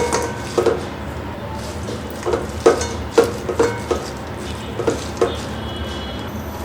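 Irregular knocks and clinks of a kitchen utensil against cookware, about a dozen in all, over a steady low hum.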